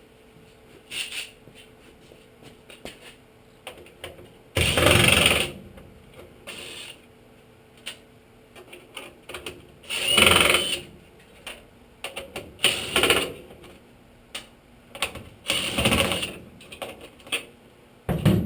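Hand work on a bare metal truck body: scattered clicks and knocks of tools and metal parts, broken by three harsh rasping bursts about a second long, roughly every five seconds.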